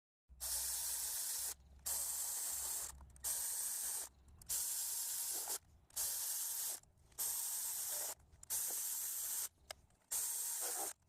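Hissing in about eight bursts of roughly a second each, with short pauses between.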